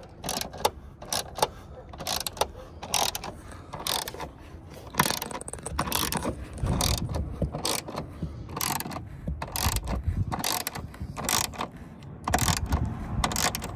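Hand ratchet driving an H6 hex bit to tighten a bolt, clicking in short irregular runs as the handle swings back and forth.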